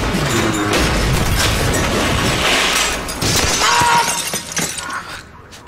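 Metal lighting truss and its lamps crashing down: a loud, dense clatter of shattering glass and metal for about three seconds, thinning out and fading near the end.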